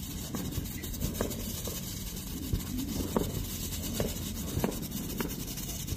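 Three handheld waterfall-with-strobe firework sticks hissing steadily as they spray sparks, with scattered sharp pops at irregular intervals.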